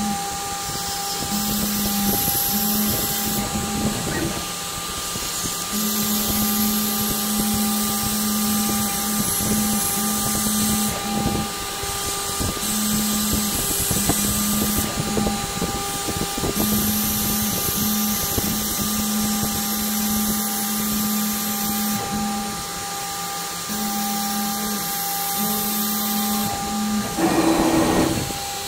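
DIY CNC router cutting 3 mm balsa: the spindle runs with a steady whine while the stepper motors hum in on-and-off stretches as the axes trace each part outline. A brief, louder burst comes near the end.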